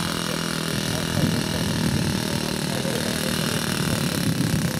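An engine running steadily, a continuous drone without breaks.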